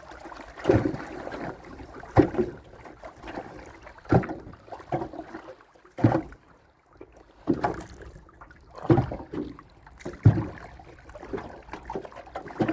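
Repeated knocks from a small boat, about one every second and a half, with quieter noise between them.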